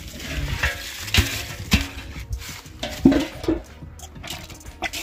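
A metal basin being handled over dry leaves: leaves rustling and crunching underfoot, and several sharp knocks as the basin is tapped and set down, one near the one-second mark and two more around three seconds in.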